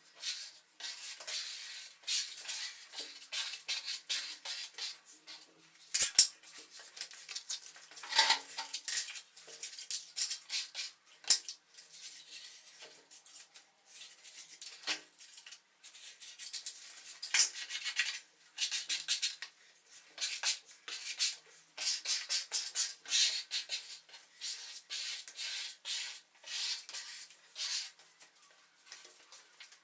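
Sped-up sound of wallpapering work in a kitchen: a dense run of quick clicks, taps and scrapes from tools and materials being handled, with a couple of sharper knocks at about 6 and 11 seconds in.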